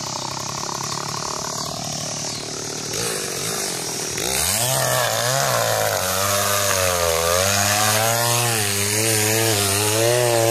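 Chainsaw cutting into a willow trunk. It runs at a lower speed at first, revs up sharply about four seconds in, and holds high speed with a wavering pitch as it works through the wood.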